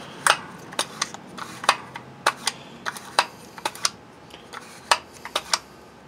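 Irregular sharp clicks and clacks of a Ford F-250 automatic locking hub's mechanism, worked by hand to test its locking action. The hub is freshly cleaned and not yet lubricated. The clicks come about a dozen and a half times at uneven intervals and die out near the end.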